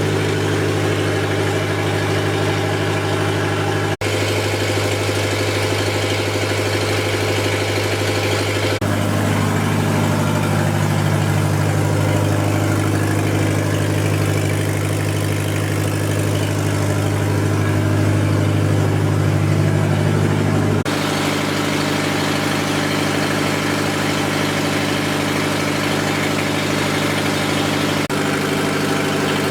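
Lister diesel generator engine running steadily, loaded by electric heaters. Its tone changes abruptly about a third of the way in and again about two-thirds of the way in.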